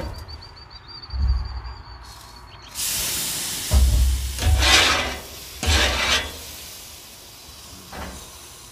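Water sizzling and hissing into steam on a hot Blackstone griddle's steel top, starting suddenly about three seconds in, while a metal griddle scraper rasps across the surface in several short strokes to clean off the cooked-on residue.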